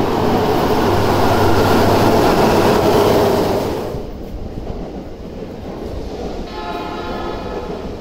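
Tokyo Metro 05N series train running loudly into an underground station, its noise cutting off abruptly about four seconds in. Then a distant JR E231-800 series train sounds its horn for about a second, several pitches together.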